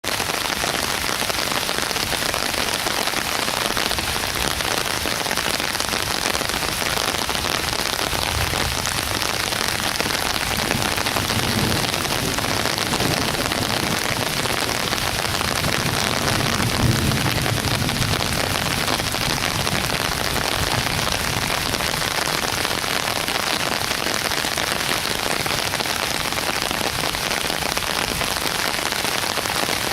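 Heavy rain pouring steadily in a windstorm, with low rumbling swells partway through, the strongest about 17 seconds in.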